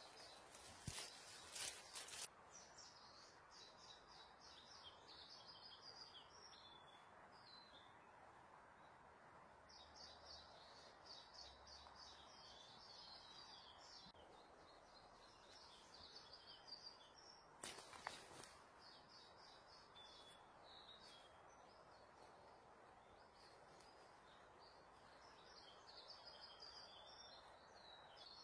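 Faint birdsong: small birds singing repeated high chirping phrases over a steady background hiss, with a few sharp clicks near the start and one more about two-thirds of the way through.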